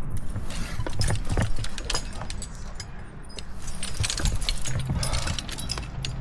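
Metal climbing hardware, carabiners and cams on a harness rack, clinking and jangling in many quick clicks as the gear is handled, over rumbling handling noise on the camera.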